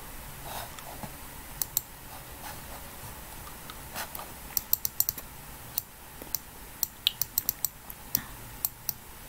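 Clicking at a computer: a string of short, sharp, irregular clicks, a pair about a second and a half in and then a quicker scatter of them through the second half, over a low steady background hum.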